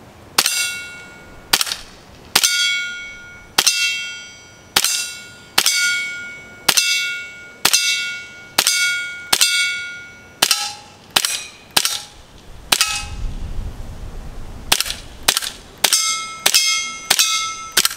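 CO2 gas-blowback airsoft Desert Eagle pistol firing a long string of shots, each a sharp crack with a brief metallic ring. They come about one a second at first, quicken just before a pause of about two seconds past the middle, then come faster again near the end.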